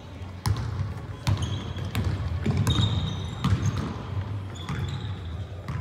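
A basketball bouncing on a hardwood gym floor, several separate bounces about a second apart, with short high squeaks of sneakers between them.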